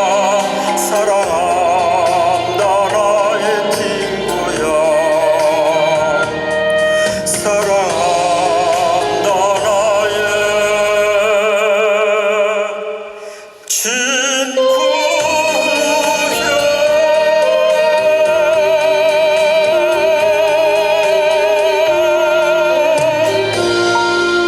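Trot music over a backing track: a melody with heavy vibrato over steady accompaniment. The music drops sharply for a moment about halfway through, then comes back with a long held, wavering note.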